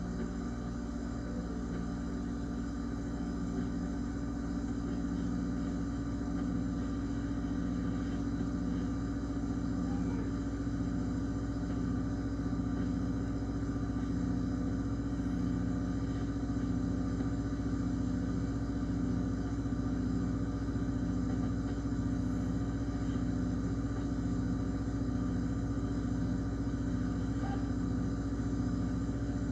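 Refrigerator running: a steady mechanical hum with a low, even pulse, heard from inside the closed fridge.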